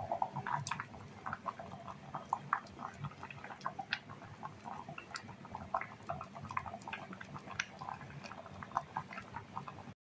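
Water at a rolling boil in an electric kettle with eggs in it: dense, irregular bubbling and popping over a low rumble.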